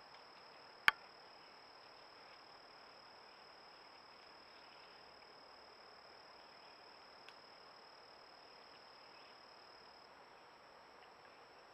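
A steady, high-pitched, faint insect chorus over a low hiss. One sharp click comes about a second in and is by far the loudest sound, with a faint tick at about seven seconds.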